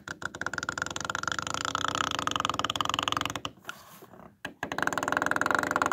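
Plastic syringe plunger creaking in a rapid run of fine clicks as it is pushed, forcing warm cleaning solution into a clogged printhead's black nozzle; two pushes, the second starting about four and a half seconds in.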